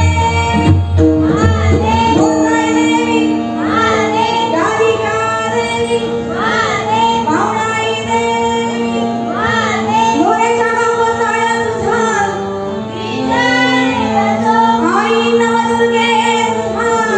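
A young girl singing a devotional bhajan solo, with ornamented pitch slides and held notes, over a steady sustained drone accompaniment. A few percussion strokes sound in the first couple of seconds and then drop away.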